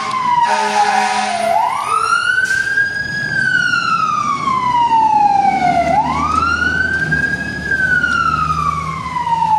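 Fire engine siren wailing, its pitch sliding slowly up and down about every four to five seconds. Two short horn blasts sound over it in the first second and a half, and a low engine rumble runs under the later wails.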